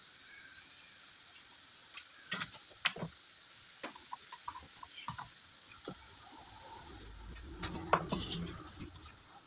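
Scattered small clicks and taps over a steady faint hiss, then a longer, louder rustle with a sharp knock about eight seconds in: handling noise at a soldering workbench.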